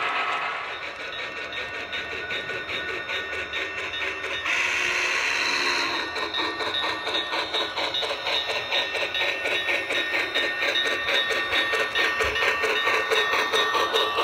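HO-scale model train running along the track, its wheels making a rapid, even clicking over the rail joints with a steady motor hum. A short hiss comes in about four and a half seconds in and stops after a second and a half.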